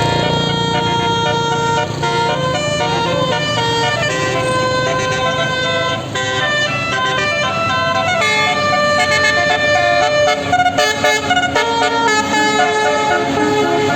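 Tour bus 'telolet basuri' musical air horn playing a melody, several horn tones sounding together and stepping from note to note, with motor-vehicle noise underneath. Around the last few seconds the notes stutter rapidly on and off.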